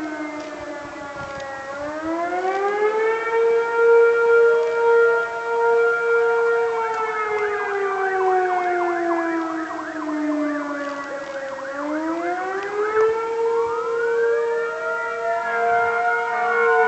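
Several outdoor warning sirens sounding at once, among them a Federal Signal 2001 and a lower-toned siren, their overlapping tones rising and falling slowly and crossing each other. The alarm is a call-out that the listener takes for a fire.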